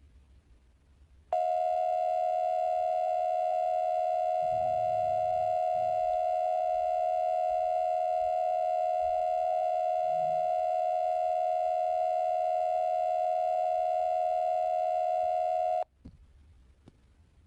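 A custom, low-pitched version of the Emergency Alert System attention signal: a single steady buzzy tone that starts abruptly about a second in, holds unchanged for about fourteen seconds, then cuts off sharply. A few faint clicks follow it near the end.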